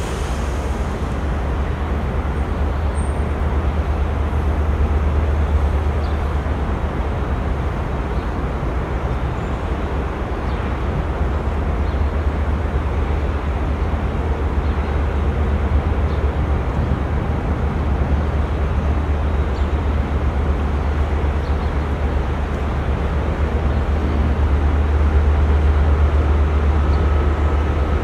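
Steady low rumble of ship engines as a destroyer and its escorting tugboat pass close by, growing a little louder near the end as the tug comes alongside.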